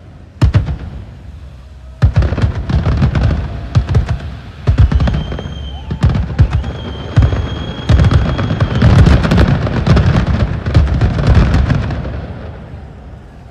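Aerial fireworks bursting in a dense, rapid barrage of booms and crackling. A long high whistle runs through the middle, and the bursts fade away near the end.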